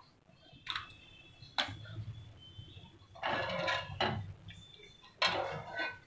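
Wire spider strainer clinking and scraping against a stainless steel pot and bowl while blanched spinach is scooped out of the water, with water splashing. There are two sharp clinks in the first two seconds, then two longer bursts of splashing and scraping in the second half.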